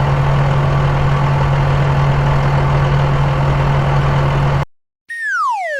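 Bulldozer's diesel engine running steadily with a deep, even hum, cutting off abruptly near the end. Just after it, a short falling tone with overtones slides down in pitch.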